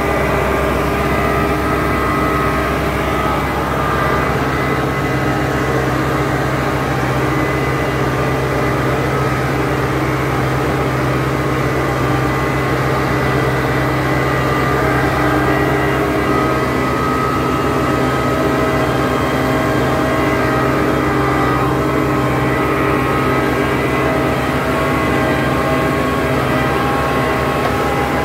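Case 100 HP tractor's diesel engine running steadily under load while towing a John Deere 5510 with a rotavator, heard from the driver's seat.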